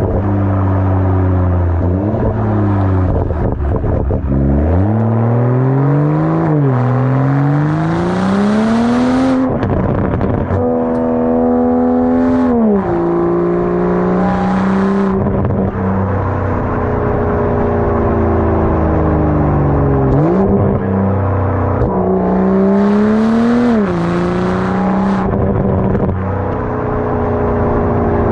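A BMW M240i's turbocharged straight-six, with its muffler and resonator deleted, revving while the car is driven hard. The engine note climbs steadily through a gear for about five seconds, drops sharply at the shifts, holds steady between them, and dips and rises quickly again near the middle and the end.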